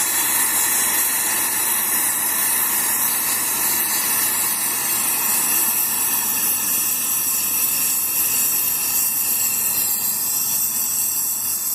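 A steady, loud rush of forced air blown into a coal forge fire to get a freshly added hardwood log to catch, with a faint whine running through it.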